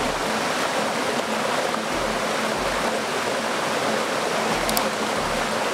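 A forest stream tumbling over boulders in a small cascade: a steady rushing of water.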